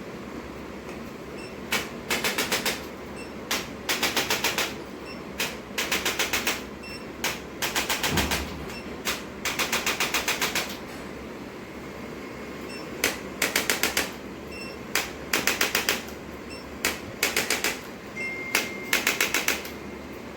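Handheld chiropractic adjusting instrument firing in bursts: a single click, then a rapid run of about seven clicks, repeated roughly every two seconds with a short pause midway.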